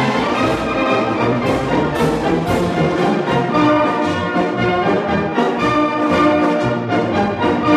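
Orchestral music with brass playing sustained notes, with a few sharp percussive accents about two seconds in.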